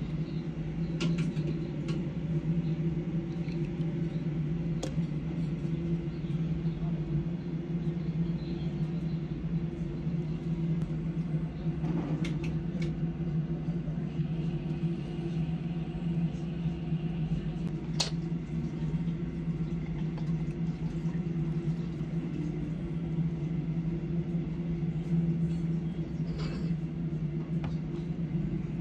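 A steady low hum with a few sharp clicks now and then, the clearest about eighteen seconds in.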